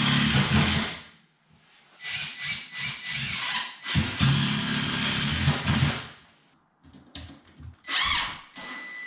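Cordless driver running in bursts, driving screws through 2x4 shoring into the wooden ceiling joists: one burst at the start, a longer run from about two seconds to six, and a short one near the end.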